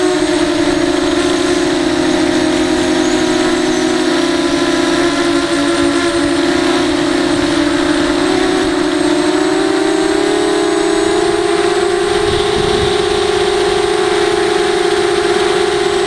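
Brushless motors and 5-inch bullnose propellers of a ZMR racing quadcopter, droning steadily in flight as heard from the onboard camera. The pitch dips a little early on, then climbs around the middle and holds higher.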